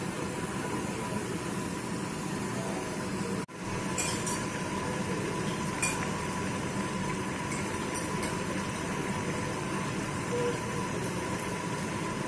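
Steady hiss of a pan of sautéed sponge gourd simmering over a gas burner, with a few light clinks. The sound cuts out for an instant about three and a half seconds in.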